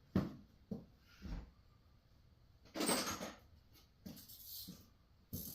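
Hand tools being handled: a few short knocks and clunks, then a longer scraping rattle about three seconds in, as a substitute socket is sought to free a seat bolt.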